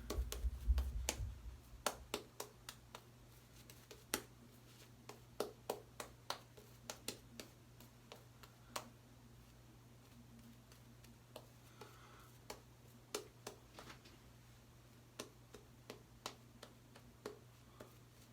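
Synthetic shaving brush being worked to build up shaving soap lather for a second pass. Faint, with scattered sharp clicks and taps, about one or two a second.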